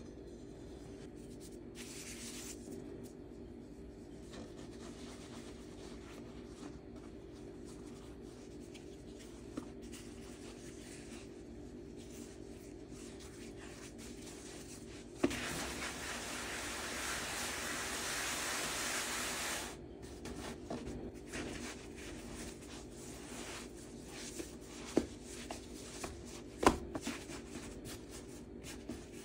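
Hands working sourdough bread dough on a floured wooden table: soft rubbing and pressing, with a louder rustling stretch of about four seconds midway and a few light knocks on the table near the end. A steady low hum runs underneath.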